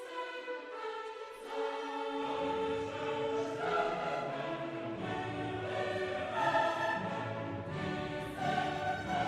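Classical music: an orchestra with a choir singing sustained chords, the low strings coming in about two seconds in.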